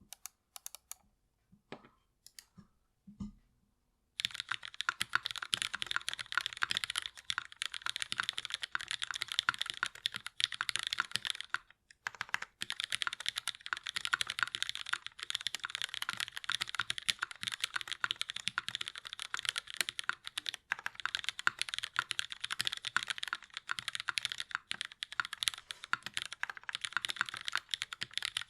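Typing on a KMAC Happy mechanical keyboard with lubed Cherry MX Black linear switches and GMK keycaps. A few separate keystrokes come first, then fast continuous typing from about four seconds in, with a couple of brief pauses.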